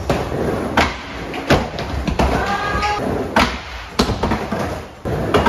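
Skateboard rolling back and forth on a mini ramp: a steady rumble of the wheels broken by about six sharp clacks and thuds as the board and trucks strike the ramp and coping, the last one near the end.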